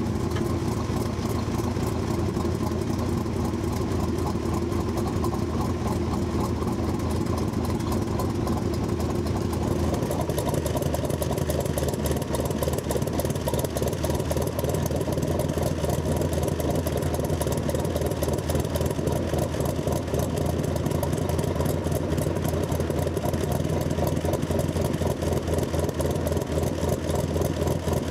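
1966 Corvette Stingray's 427 big-block V8 idling through side-mounted exhaust pipes, just after starting, at about 1,500 rpm. Its tone shifts a little about ten seconds in.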